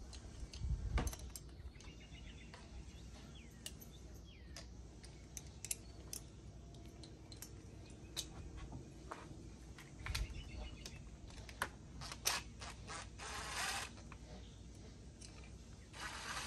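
Small clicks and clinks of hand tools and metal parts on a Predator 670 engine, with a couple of duller knocks. About 13 seconds in, a cordless drill-driver runs for about a second, driving a bolt for the fuel pump bracket.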